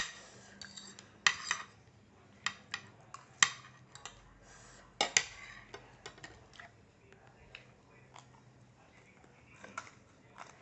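Cutlery clinking and scraping against a bowl or plate while eating: short sharp taps at irregular intervals, a few louder ones in the first half and sparser, fainter ones later.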